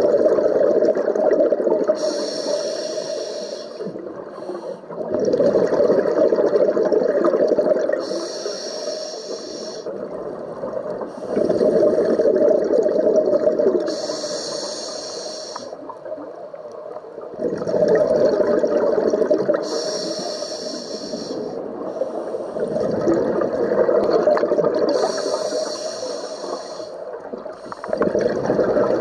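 Scuba diver breathing through a regulator underwater. A rush of exhaled bubbles alternates with the hiss of an inhalation, about every six seconds, five breaths in all.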